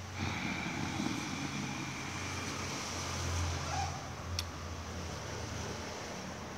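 Street traffic: a car engine running low and steady, swelling a little about three seconds in, with one short sharp click about four and a half seconds in.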